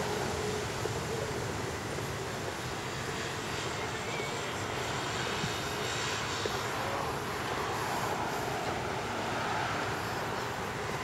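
Steady drone of an aircraft engine overhead, mixed with general street noise.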